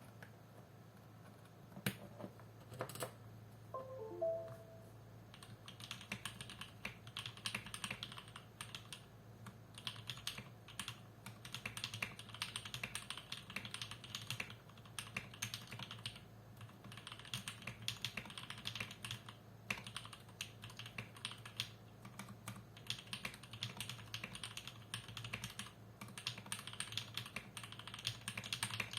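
Typing on a custom 65% mechanical keyboard with lubed Jwick Yellow linear switches, in a stacked acrylic sandwich case with a 2 mm plate and OEM-profile keycaps. A few single key presses come first, then steady fast typing from about five seconds in, with short pauses.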